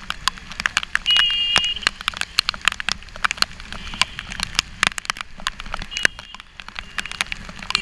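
Raindrops striking a GoPro action camera's housing during a rain ride, a dense, irregular crackle of sharp ticks. A vehicle horn beeps briefly about a second in.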